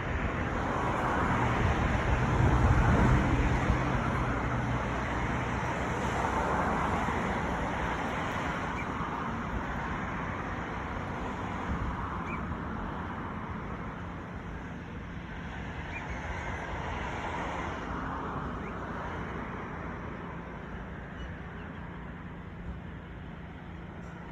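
Road traffic going by: a vehicle passes, loudest about two to four seconds in, then fades into a steady wash of tyre and engine noise from passing cars.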